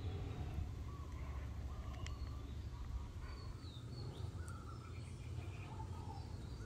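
Outdoor background: a steady low rumble with faint birds chirping at intervals, and a faint click about two seconds in.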